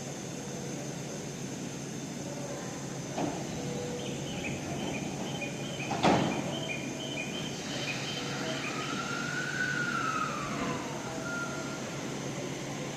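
E231-series electric train at a station platform: a repeating two-tone door chime, a sharp thud as the doors shut, then a whine that rises and falls in pitch as the train starts to pull away. Steady station noise underneath.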